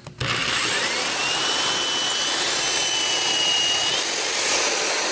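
Cordless drill with a 1/8-inch bit drilling a pilot hole through drywall into a wooden wall stud. The drill starts about a quarter second in, and its motor whine rises, holds steady, then falls away about four seconds in while the drilling noise carries on.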